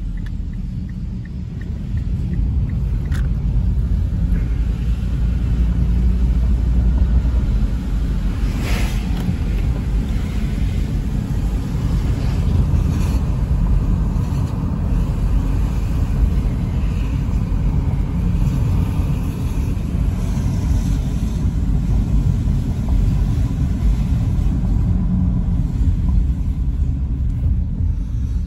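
Car interior road and engine noise while driving: a steady low rumble that gets a little louder about two seconds in, with a couple of faint brief clicks.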